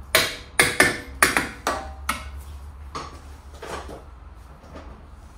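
Hammer striking metal: about seven sharp, ringing blows in quick succession, then two lighter taps a second or so apart.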